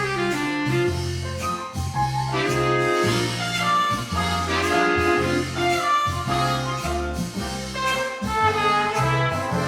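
Old-time big band jazz with brass and saxophone over a walking bass line.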